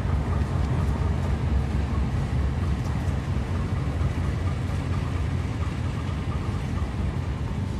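Diesel locomotive engine running with a steady low rumble as the locomotive shunts slowly away, fading a little as it goes.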